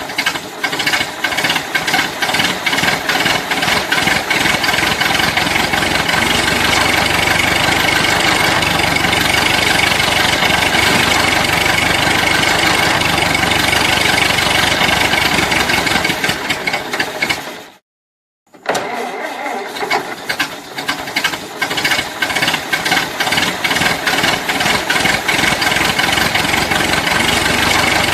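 An old car engine is cranked, catches and runs unevenly. About 17 seconds in, it fades out to a short silence. It is then cranked and started again, and runs on.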